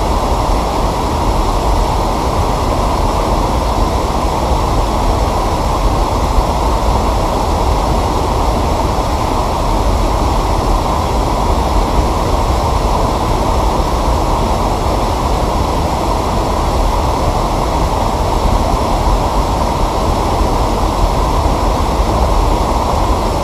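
Water rushing steadily over a small waterfall, a constant low rushing noise.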